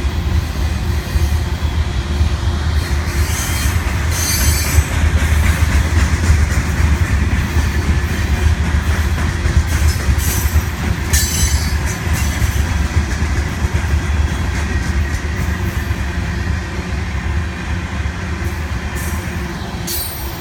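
Covered hopper cars of a freight train rolling past: a steady heavy rumble and rattle of steel wheels on the rails, with brief high wheel squeals about four seconds in, around eleven seconds and near the end.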